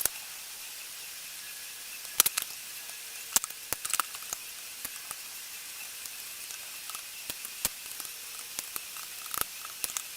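Scattered small clicks and taps of hands and a screwdriver working on a laptop's plastic bottom case while it is being unscrewed and opened.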